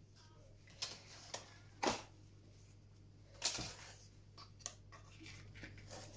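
Dry lasagne sheets clicking and clattering as they are handled and laid on the dish: a handful of short, sharp clicks, the loudest about two seconds in and another about three and a half seconds in.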